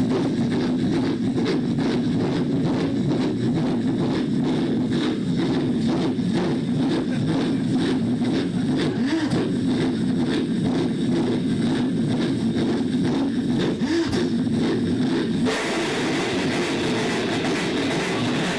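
Mouth-made imitation of a train by a sound-effects comedian: a steady, rhythmic chugging and clatter like a train running on the rails. A louder hiss joins in near the end.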